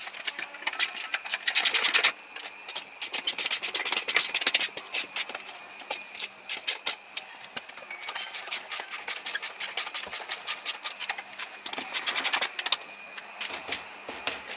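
Ratchet wrench clicking in four quick bursts of rapid, evenly spaced clicks, as fasteners are run back in.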